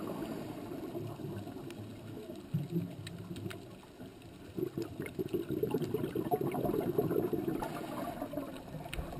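Gurgling, bubbling water that eases off in the first seconds, swells again about four and a half seconds in and fades near the end, with scattered faint clicks.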